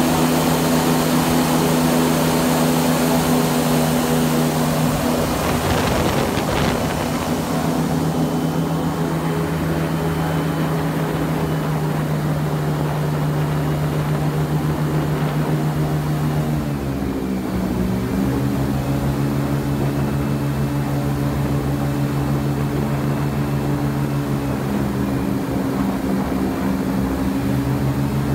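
Airboat engine and caged propeller running steadily at cruising speed. The engine note dips in pitch about two-thirds of the way through, then comes back up.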